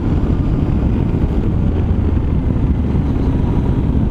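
Yamaha Ténéré 700's 689 cc parallel-twin engine running at a steady cruising speed on a dirt track. It is heard as an even low rumble mixed with wind and tyre noise on the bike-mounted microphone.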